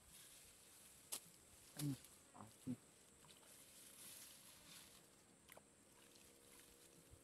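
Near silence: outdoor quiet, with a sharp click about a second in and two or three short, low pitched sounds around two seconds in, then a faint steady hum.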